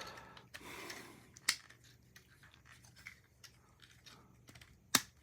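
Hard plastic parts of a Transformers action figure being handled and moved by hand: faint rubbing with scattered small ticks, and two sharp clicks, one about a second and a half in and a louder one near the end.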